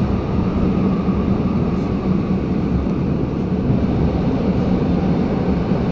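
MI09 double-deck RER A train running at speed, heard from inside the carriage: a steady rumble with a constant low hum and a faint higher whine.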